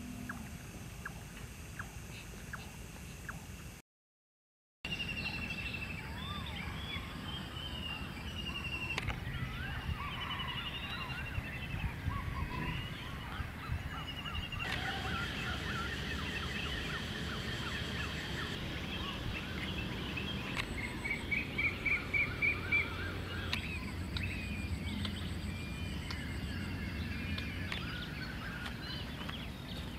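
Dawn chorus of several wild birds: many chirps, whistles and short trills, with a loud fast trill of about half a dozen notes some two-thirds of the way through, over a low steady rumble. Before a brief silence near the start, night ambience with faint regular ticking.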